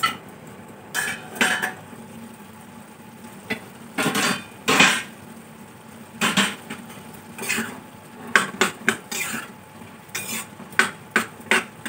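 Metal spatula scraping and clanking against a kadai (Indian wok) while stirring, in irregular strokes. The longest, loudest scrape comes about four to five seconds in.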